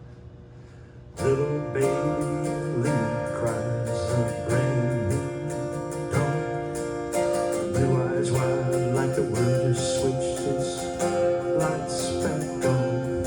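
Music begins about a second in: the instrumental intro of a song led by acoustic guitar, with a steady beat.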